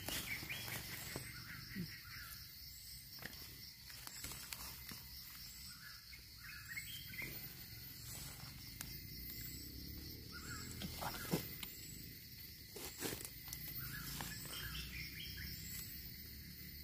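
Forest ambience: a steady high insect drone with a bird's short, high chirp repeated every second or two. Now and then comes a soft scrape or click of a small knife digging wild mushrooms out of soil and leaf litter, the sharpest about 11 and 13 seconds in.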